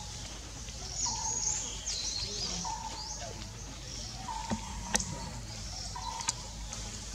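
Forest birdsong. A short, flat call repeats about every second and a half, and a higher twittering song comes about a second in. A few sharp clicks come near the middle and later.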